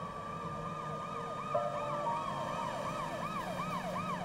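Police car siren: a slow rising wail that switches to a fast yelp about a second and a half in, sweeping up and down about three times a second.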